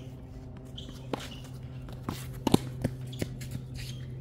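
A few sharp knocks and clicks at uneven intervals, the loudest a close pair about two and a half seconds in, over a steady low hum.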